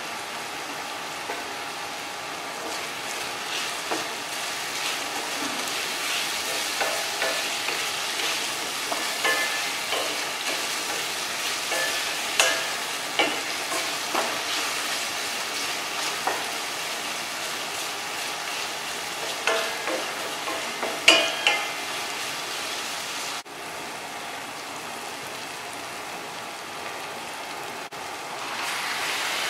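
Chopped onion, garlic, tomato and red bell pepper sizzling in oil in a stainless steel pan. A wooden spatula stirs them, knocking and scraping against the pan at irregular moments. Near the end the sizzle grows louder as whole squid are tipped into the pan.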